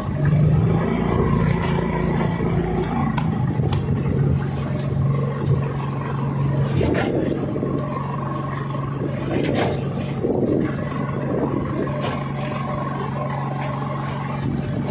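Fishing boat's engine running steadily, an even low hum.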